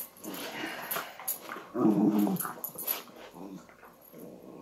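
Dogs growling in play, loudest about two seconds in.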